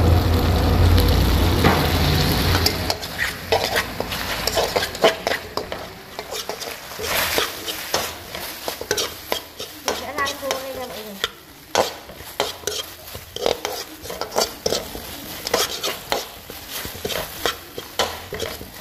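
Metal spatula and slotted spoon scraping and clacking against an aluminium wok as chicken feet are stir-fried in a fish-sauce and lemongrass glaze, with a soft sizzle underneath. A low hum runs for the first few seconds and then stops.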